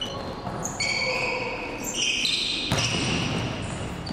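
Basketball shoes squeaking on a hardwood gym floor in two long high squeals as the player drives to the basket, then one sharp thump about two-thirds of the way in.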